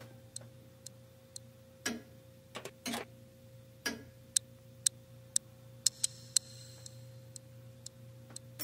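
Twin-bell alarm clock ticking, about two ticks a second, over a faint steady tone. A few duller knocks fall among the ticks in the first four seconds.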